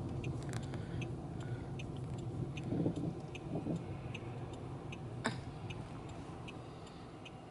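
Inside a car: low engine and road rumble that slowly dies down, with a turn-signal indicator ticking about once every 0.7 seconds. One sharper click sounds about five seconds in.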